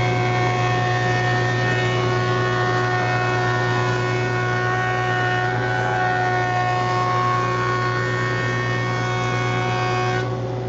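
JET jointer face-jointing a rough-sawn board: the cutterhead shears the wood over the steady hum of the jointer and a dust collector running. About ten seconds in the cutting noise stops abruptly as the board clears the cutterhead, leaving the motors running.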